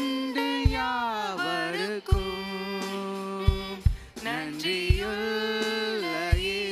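Live worship band playing a Tamil Christian song: voices sing long, sliding melodic lines over guitars, with a low drum beat about every second and a half.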